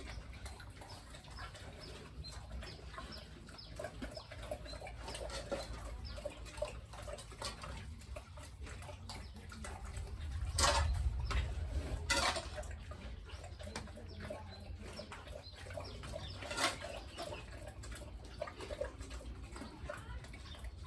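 Chickens clucking, with scattered small scratching clicks and three sharp knocks, two of them close together about halfway through and one a few seconds later.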